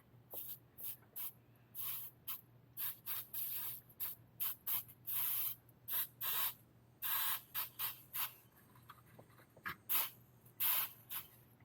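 Soldering iron hissing as it melts solder and flux onto a wire joint, in many short, irregular sizzles, a few of them drawn out to about half a second.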